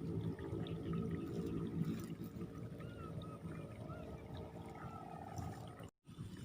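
Muddy paddy water sloshing and gurgling at an eel hole, with faint chirps in the background; the sound drops out completely for a moment near the end.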